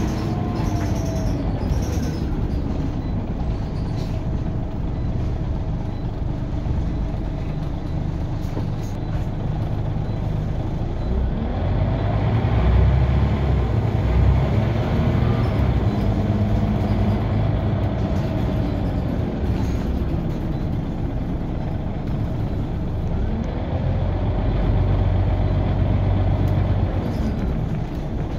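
Scania OmniCity bus with a 9-litre five-cylinder engine, heard from inside the passenger saloon while driving. The engine pitch rises and falls through the gears, with a heavier low rumble as it pulls harder about halfway through and again near the end.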